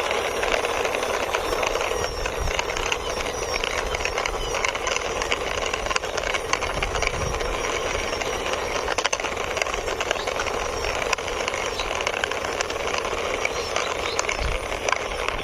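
Small toy car pushed by hand along a rough wall, its wheels rolling with a steady, gritty clicking rattle.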